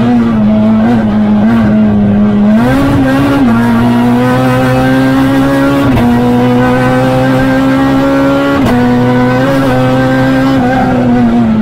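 Renault Clio R3 Max rally car's four-cylinder engine, heard from inside the cabin, running at high revs with its pitch held nearly steady. It rises briefly about three seconds in and is broken by sudden short jolts about 6 and 9 seconds in.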